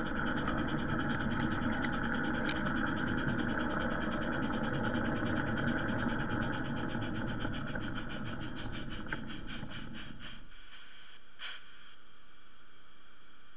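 Garden railway train running along its track, heard from a wagon: a steady rumble of the wheels with a whine above it and a few clicks. About ten seconds in the rumble stops suddenly as the train comes to a halt, leaving a faint hiss.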